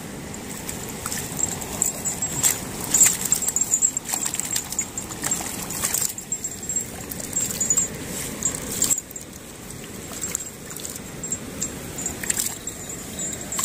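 Water sloshing and splashing in irregular bursts over the steady rush of a stream, as a catch of fish is tipped out of a container.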